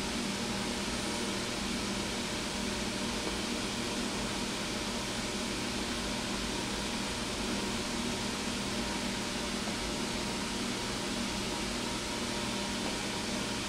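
Steady mechanical hum and hiss, with a constant low drone and no distinct events.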